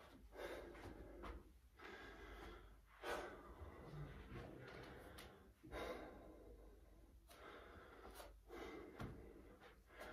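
A man catching his breath after a circuit of bodyweight exercises: faint, slow breaths, with a louder breath every two to three seconds.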